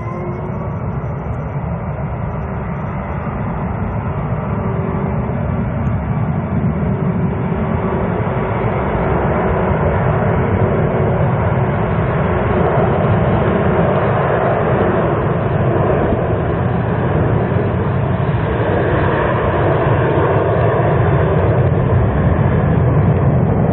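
Jet engine noise from an Airbus A380 flying a display: a loud, deep rumble that grows steadily louder for about thirteen seconds and then holds.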